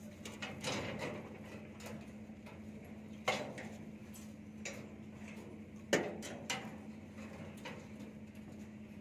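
Light metallic clicks and scrapes of steel binding wire being twisted around crossing rebar with a hand tool, with two sharper metal clacks about a third and two-thirds of the way through.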